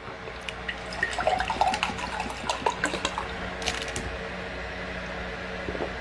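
Water poured from a plastic bottle into a glass, with a short crackle about four seconds in.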